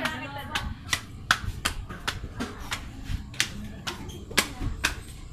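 Footsteps on a hard floor or stairs: sharp, irregular clicks at about three a second, over a low rumble from the phone being carried.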